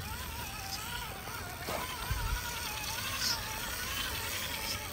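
Gmade Komodo Double Cab RC crawler's electric motor and gear drive whining, the pitch wavering up and down as throttle and load change on the rock, with a couple of soft knocks about two seconds in.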